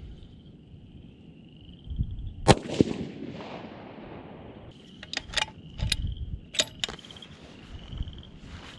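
A single shot from a scoped precision rifle about two and a half seconds in, sharp and loud with a brief echo trailing off. A few seconds later come several short sharp metallic clicks as the rifle's action is cycled.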